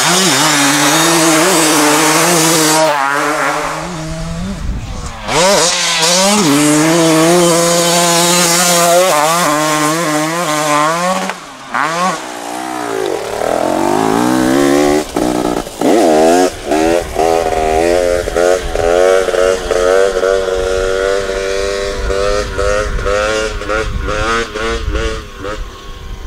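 2023 KTM 250 SX single-cylinder two-stroke dirt bike engine revving hard through the gears, its pitch climbing and dropping again and again with each shift and throttle chop. Near the end it grows fainter as the bike rides away.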